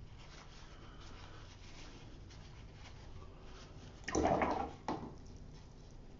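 A watercolour brush swished briefly in a water jar about four seconds in, followed by a light knock, over faint room noise.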